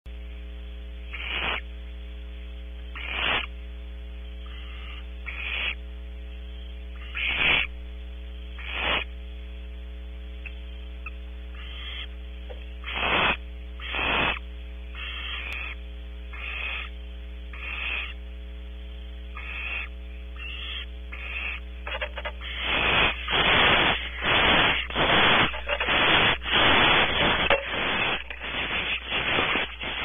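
Barn owl nestling's hoarse hissing begging calls, the rasping 'snore' with which owlets beg for food: one every second or two at first, then fast and louder over the last several seconds. A steady electrical hum runs underneath.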